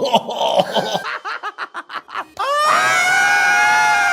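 Quick choppy bursts of laughing and vocal noises. About two and a half seconds in, a long high-pitched shriek starts and is held at a steady pitch.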